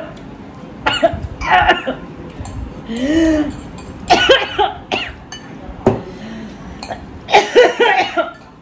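Coughing mixed with short groans and gasps from people whose mouths are burning from very spicy noodles, in about seven short outbursts; a drawn-out rising-and-falling groan comes about three seconds in.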